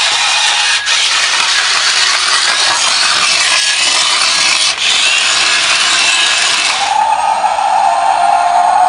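Electric drive motor and gearing of a Yigong YG-258E remote-control dump truck running with a harsh, steady rasping whir. About seven seconds in it changes to a steadier, higher whine.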